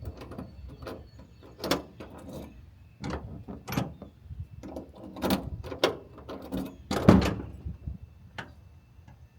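Door lock mechanism of a 1979 Dodge D-150 being worked by hand, a string of irregular clicks and clunks as the latch locks and unlocks through the door lock rod, now held by a new rod clip. The loudest clunks come about two seconds in and again about seven seconds in.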